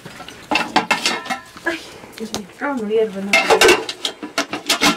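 Metal cooking pot and its lid clinking and knocking as they are handled on an iron grate, in a run of uneven sharp clatters that grow busier in the second half.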